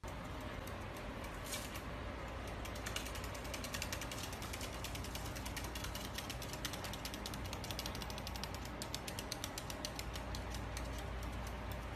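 White-bellied caique's claws clicking on a wooden tabletop as it walks and hops: a fast run of small ticks, getting denser in the second half, over a steady low hum.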